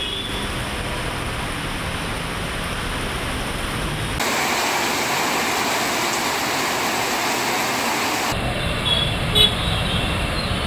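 Heavy rain hissing down on a road, with traffic noise under it. About four seconds in it cuts to a brighter, steadier hiss of rain on a wet street, and about eight seconds in to traffic on a waterlogged road, with a couple of short beeps.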